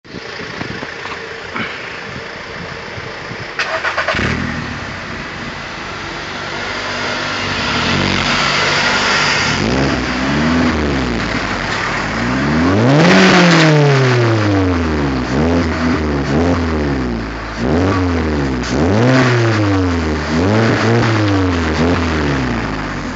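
VW Polo 9N's 1.4-litre four-cylinder petrol engine running through an aftermarket twin-tip silencer. It runs steadily at first, then is revved again and again: one long rev about halfway through is the loudest, followed by a string of short blips, each rising and falling in pitch.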